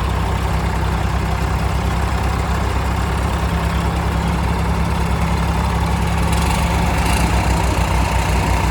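Tractor diesel engine running steadily at idle. About six seconds in, its lowest note turns into a pulsing beat.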